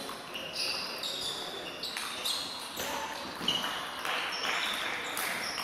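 Table tennis balls clicking off bats and tables in an irregular patter from several tables at once, echoing in a large sports hall.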